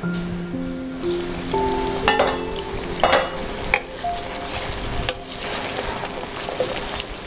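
Thick egg curry sizzling in a steel pan while a wooden spatula stirs it, knocking and scraping against the pan a few times. Soft background music with held notes plays underneath.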